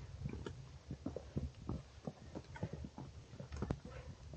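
Hiking boots stepping and scuffing on rock: an irregular run of short, sharp footfalls and scrapes.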